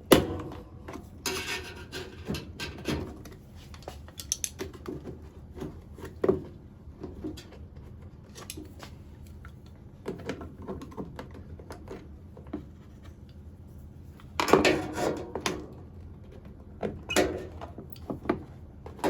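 Plastic clicks, knocks and rubbing as a washing machine's soap dispenser housing and its retaining bracket are unclipped and worked loose. A sharp knock comes right at the start, and a busier run of knocks and scraping about fourteen to fifteen seconds in.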